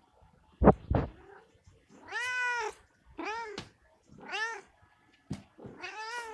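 Two sharp knocks close to the microphone, about a third of a second apart, then a domestic cat meowing four times. Each meow rises and falls in pitch, and the first is the longest.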